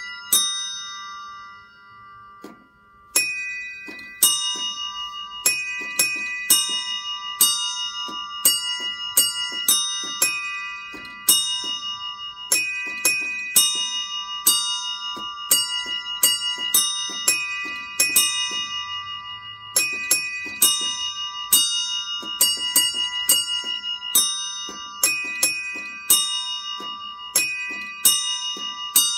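Bells struck one after another in a quick repeating pattern of a few pitches, each strike ringing on. The strikes stop briefly just after the start and resume about three seconds in.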